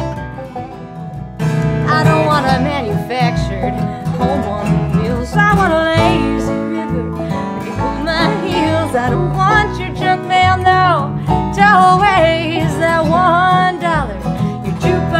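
Bluegrass band of banjo, acoustic guitar and upright bass playing. The band starts softly and comes in fuller and louder about a second and a half in.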